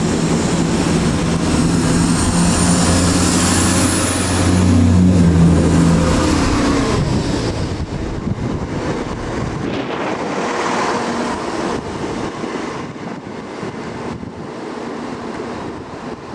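Class 170 Turbostar diesel multiple unit running in close past the microphone, its underfloor diesel engines droning steadily with a high whine above. About ten seconds in the engine drone drops away, leaving a quieter rushing noise.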